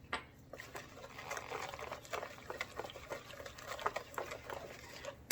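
Sponge-cake batter being mixed in a bowl: irregular wet slapping and light taps of the utensil against the bowl as the peach flavouring is worked in.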